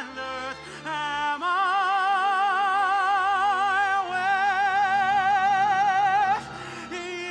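Tenor voice singing with a symphony orchestra, holding a long high final note with wide vibrato for about five seconds before it stops, leaving the orchestra on a softer sustained chord.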